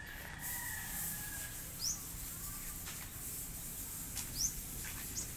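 Outdoor ambience with a steady high hiss and a few short, rising bird chirps, about two seconds in, again past four seconds and once more near the end.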